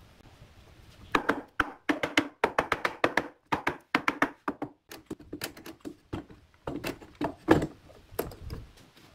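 Wooden mallet tapping edge-glued boards flush in a clamped tabletop glue-up: quick runs of sharp knocks, then slower, heavier single blows, the loudest about seven and a half seconds in.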